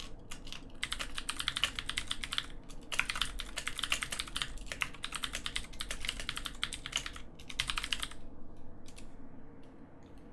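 Fast typing on a years-old Filco Majestouch 2 mechanical keyboard with Cherry MX Blue switches: a rapid stream of key clicks that thins to a few single keystrokes near the end. The blue switches' clicks are worn and faded out from 6–7 years of use.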